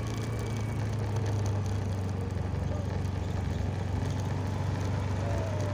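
Steady low rumble and hum of a small vehicle rolling over brick paving.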